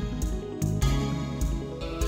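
Background music: gentle guitar-led new-age instrumental with a steady beat.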